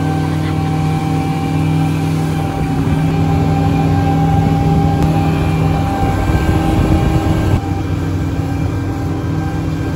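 Speedboat engine running steadily at cruising speed, a constant drone over the rush of water along the hull. About six seconds in there is a stretch of heavier, rougher rumble.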